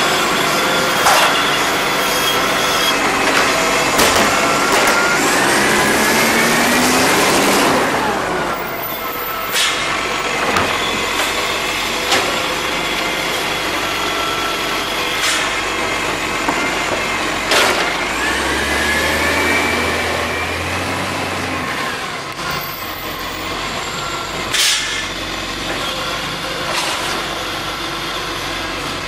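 Iveco Acco garbage truck's diesel engine running and revving up twice, with several short, sharp air-brake hisses.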